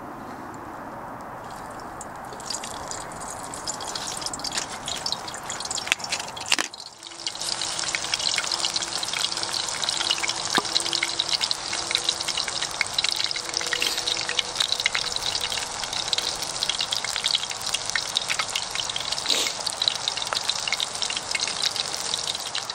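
Hot oil in a steel pan sizzling and crackling around onion pieces frying over a charcoal fire. It is a dense run of fine pops, louder from about seven seconds in.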